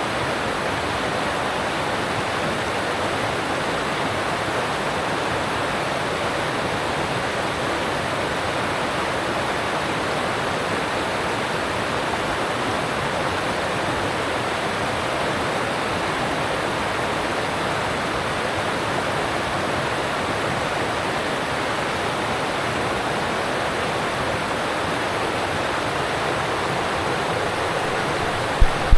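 Alpine stream rushing past in a steady, even wash of water, with a brief low thump near the end.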